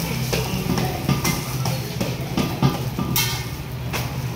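Metal spatula clanking and scraping on a large flat griddle (tawa) while parathas cook, with several irregular sharp strikes, some leaving a brief metallic ring, over a steady low hum.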